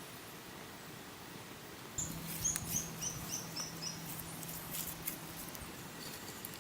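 A bird calling: a run of about six short high chirps that step down in pitch, over a steady outdoor hiss.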